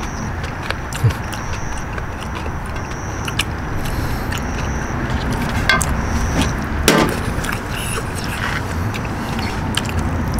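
Metal chopsticks clicking and scraping against a metal tray as noodles are picked up and eaten, with a few sharper knocks. Underneath there is a steady background noise and a short, high-pitched chirp that repeats about once a second.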